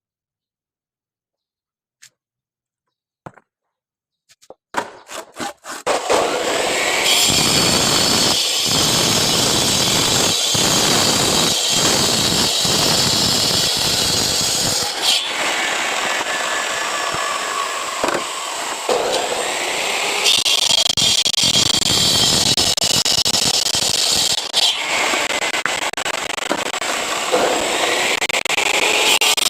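Power disc cutter cutting concrete paving blocks. After a few clicks it starts about five seconds in and runs loudly and steadily, its whine dipping and rising again a couple of times as the disc bites into the block.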